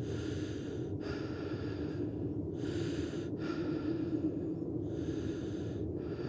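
A person breathing heavily and rhythmically: a run of breaths about a second each, with brief pauses between them, over a steady low hum.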